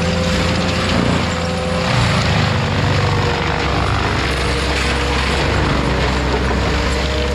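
Heavy-equipment engine running steadily under load, a low rumble with a whine that drifts slightly in pitch, typical of a machine at work clearing brush.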